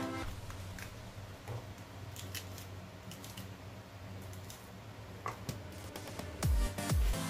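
Kitchen knife cutting through a red bell pepper on a wooden chopping board: scattered crisp cuts, snaps and taps as the pepper is sliced and handled, with a few low knocks on the board near the end.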